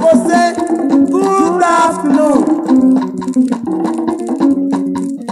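1979 Nigerian highlife band recording playing, with singing that slides between notes in the first two seconds or so, then held instrumental notes over a busy percussion rhythm.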